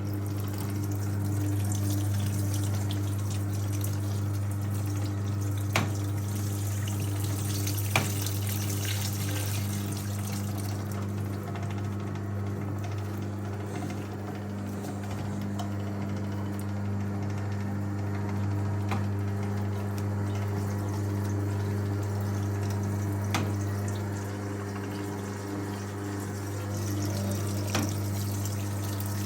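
1958 Hotpoint Empress washing machine's electric motor running steadily with a low hum, driving the power wringer as a towel is fed through, with water squeezed from the towel running off. A few light clicks.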